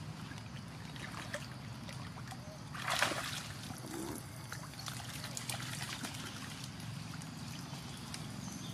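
Muddy stream flowing and trickling steadily, with a brief louder splash about three seconds in.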